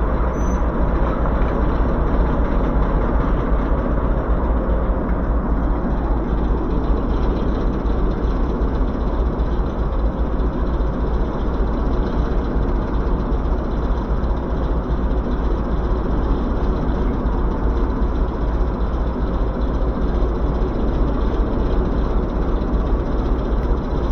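Heritage railway train running with a steady rumbling noise and a heavy low rumble underneath.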